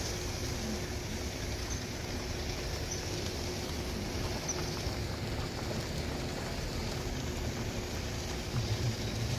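Steady low rumble of heavy mining machinery engines running, with a faint steady hum over it.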